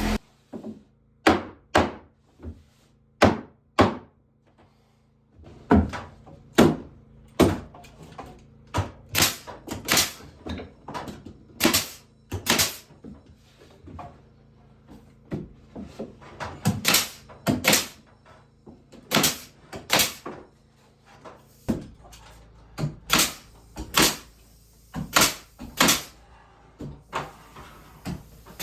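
Irregular series of sharp knocks and thuds from carpentry work on wood, up to about two a second, with a short pause about four seconds in.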